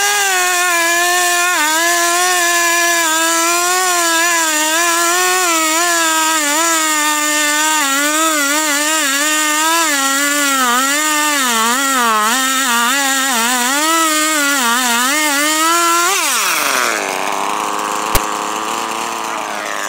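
Husqvarna 440 two-stroke chainsaw at full throttle cutting through a log, its pitch wavering as the chain bites. About sixteen seconds in, the throttle is released and the engine falls back to idle, with a single sharp click near the end.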